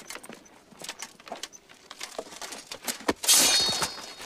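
Light metal clinking and scuffing steps, then a loud metallic crash with a short ringing tail about three seconds in.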